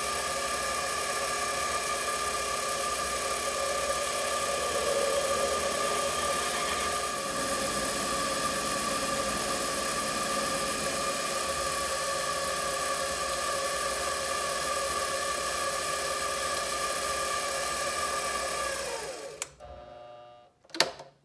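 King Canada 7x12 mini metal lathe running steadily with a high motor whine while a 5/16 in drill bit in the tailstock chuck bores through a Delrin plastic workpiece. About nineteen seconds in the lathe is switched off and its whine falls away as the spindle winds down, followed by a sharp click near the end.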